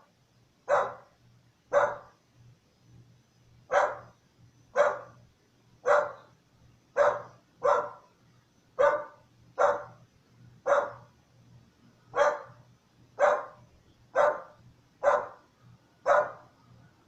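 A dog barking in single, evenly spaced barks, about one a second, with a short pause now and then.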